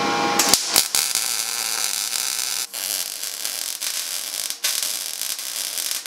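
Wire-feed (MIG) welding arc crackling and sizzling steadily while an end cap is welded on. The arc strikes with a couple of clicks near the start, then runs continuously with two short breaks, about halfway and two-thirds of the way through.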